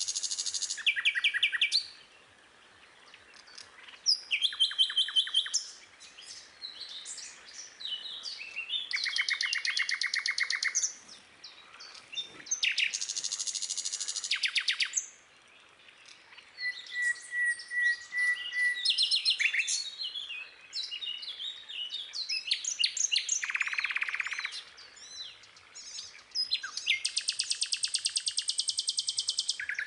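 Songbirds singing and chirping in rapid trills of quickly repeated notes, one burst after another with brief pauses between them.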